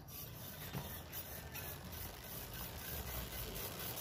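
Bicycle rear wheel spinning freely, its disc brake rotor turning through a Clarks Clout1 hydraulic caliper: a steady whirring hiss with a few faint ticks, growing slightly louder.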